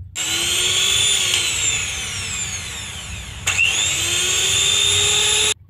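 Electric hand mixer running, its twin wire beaters whipping hot sugar syrup and gelatin into marshmallow. The motor's whine slowly drops in pitch for about three seconds. After a sharp break it climbs again, and the sound cuts off just before the end.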